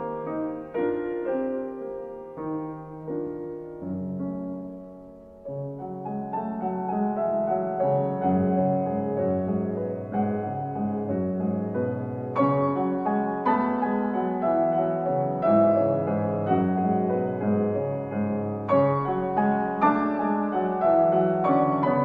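Background piano music. It dies down about four seconds in, comes back a moment later, and grows fuller and louder from about twelve seconds in.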